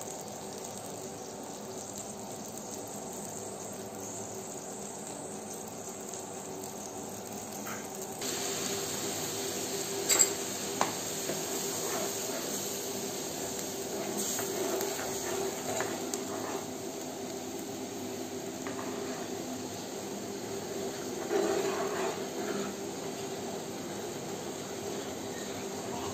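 A metal spoon stirring and scraping through a bubbling milk mixture in a non-stick pan, with the mixture sizzling and a few sharp clinks of the spoon against the pan, mostly about ten seconds in and again near 21 seconds. A steady low hum runs underneath.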